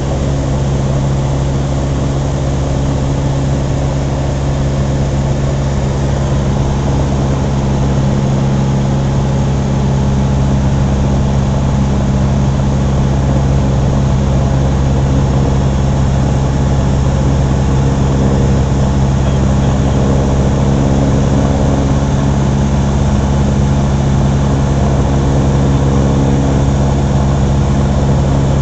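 Cessna 150's four-cylinder Continental O-200 engine and propeller running steadily in flight, heard as a loud, even drone inside the small cabin; it grows slightly louder about eight seconds in.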